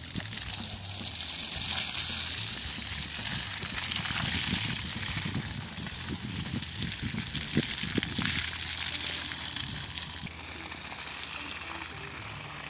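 Water gushing from the open outlet of a flexible irrigation hose and splashing onto wet soil, growing quieter in the last few seconds.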